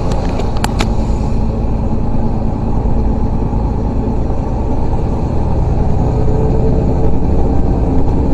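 Truck engine running steadily, heard from inside the cab as the truck drives through floodwater, a dense low rumble. Two sharp clicks come a little under a second in.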